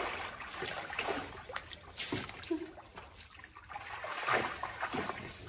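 Water splashing and trickling in a shallow garden pool as monkeys move through it, in irregular splashes. A louder splash and rush of water comes near the end as a monkey hauls itself out with water streaming off it.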